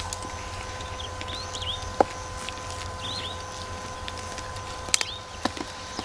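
A small bird calling repeatedly with short two-note chirps, about every second or two, over a low steady rumble and hum. A few sharp clicks cut in, the loudest about two seconds in and again around five seconds in.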